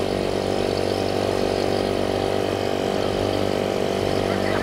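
Small Yamaha outboard motor on a bumper boat running steadily at close range, holding an even pitch.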